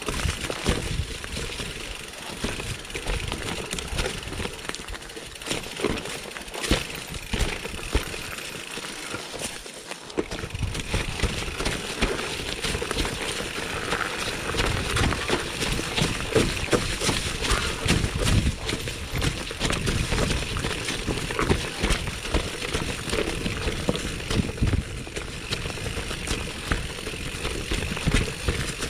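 Mountain bike rolling down a rough dirt forest trail: tyres running over leaves, dirt and stones, with frequent rattles and knocks from the bike over bumps. It goes quieter for a moment about a third of the way in.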